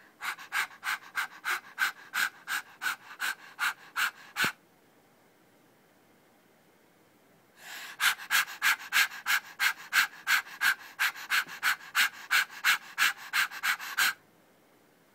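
A person panting like a dog: quick, even, breathy pants at about four a second. They come in two bouts, one of about four seconds, then after a pause of about three seconds another of about six seconds.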